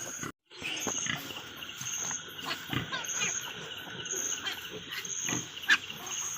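Pigs in a farrowing pen: faint grunts and squeaks amid rustling, with a high insect chirp repeating about once a second.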